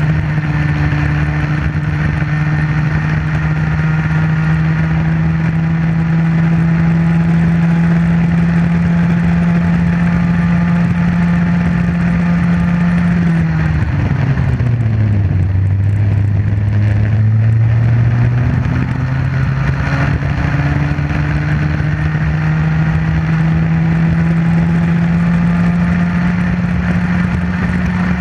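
Comer 50cc two-stroke kart engine heard onboard, running at steady high revs, then dropping sharply about halfway through as the kart slows for a tight bend, and climbing slowly back up as it accelerates out.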